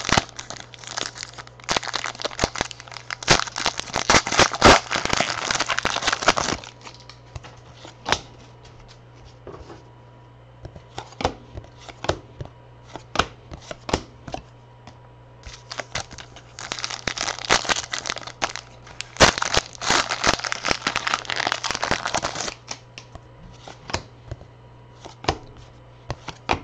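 Football card pack wrappers being torn open and crinkled in two long stretches, with scattered light clicks and taps in between as the cards are handled. A steady low hum runs underneath.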